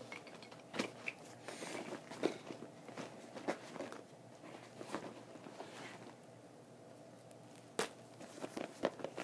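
Handling noise: scattered light clicks and taps with faint rustling, as small objects are handled close to the microphone, with a sharper tap near the end.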